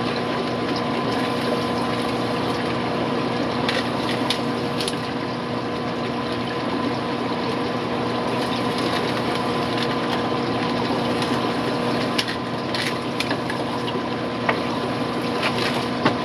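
Steady hum and running water of a fish room's aquarium pumps and air pumps, with a few light clicks.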